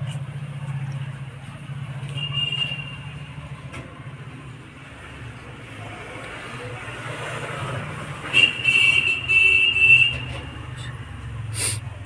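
Steady background traffic-like noise with a low hum. A short high tone comes about two seconds in and a longer, louder one from about eight to ten seconds, and there is a sharp click near the end.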